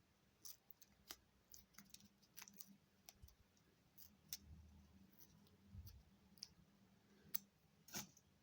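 Very quiet, scattered small clicks and light crackles from thin brown packing paper being handled with the fingers, at irregular intervals with a few slightly louder ticks near the end.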